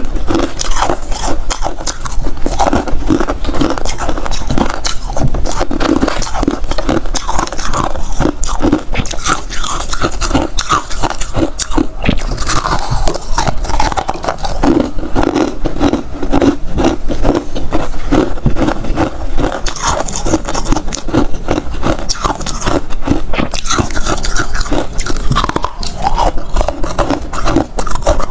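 A person biting and chewing freezer ice, with a dense, unbroken run of crisp cracks and crunches.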